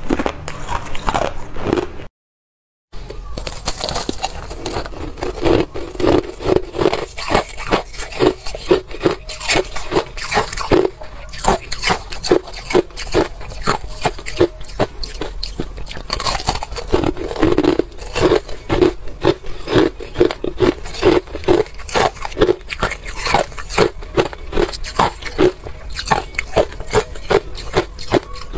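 Ice being bitten and chewed close to a clip-on microphone: rapid, crisp crunches several times a second. There is a short break of silence about two seconds in.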